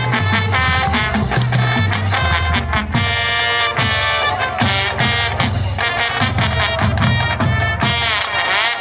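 High school marching band playing loudly: brass over a pulsing bass line with drum hits. Near the end the horns slide in pitch and the music stops sharply.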